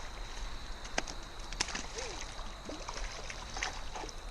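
Creek water trickling under a steady high insect drone, with two sharp clicks about one and one-and-a-half seconds in.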